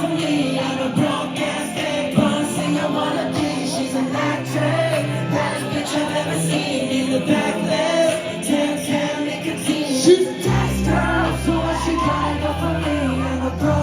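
Music with singing. A deep bass line comes in about ten seconds in.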